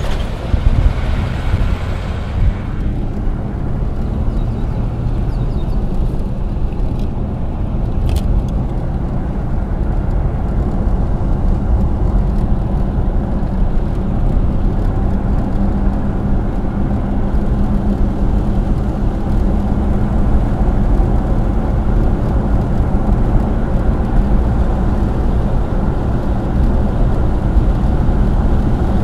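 Steady rumble of a car's engine and tyres on the road, heard from inside the moving car.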